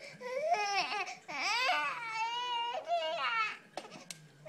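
Infant fussing and crying: a run of high, wavering wails and whimpers that rise and fall in pitch, followed by a short sharp click near the end.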